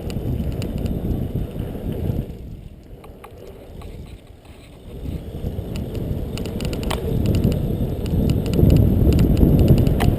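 BMX bike riding on a dirt track, heard from a helmet-mounted GoPro: tyre rumble and wind buffeting the microphone. It eases off for a couple of seconds, then builds to its loudest near the end, with a few sharp clicks.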